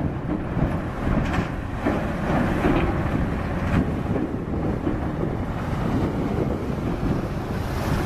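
Wind rushing over the microphone on top of the steady running of several excavators' diesel engines, their buckets churning slushy snow in harbour water. A steady noisy rumble with no clear rhythm.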